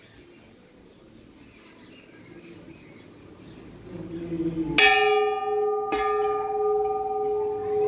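Temple bell struck twice, about a second apart, ringing on with a steady, lingering tone after each strike.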